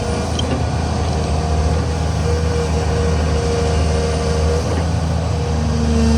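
Hydraulic excavator's diesel engine running steadily under work, with a higher whine that comes and goes.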